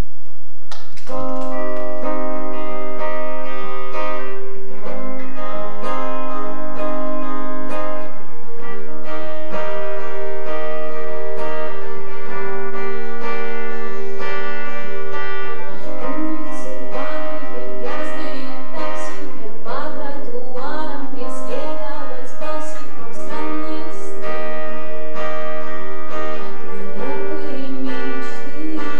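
Music of a song beginning about a second in, with guitar and long held notes.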